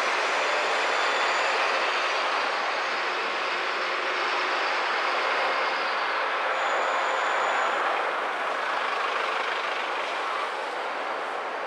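City street traffic heard from a moving car: a steady rush of road and engine noise. A brief high squeal is heard about a second in and again around seven seconds in.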